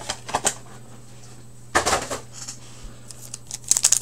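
Foil hockey card packs being handled: a few light clicks and a short rustling knock, then crinkling of a foil pack wrapper starting near the end.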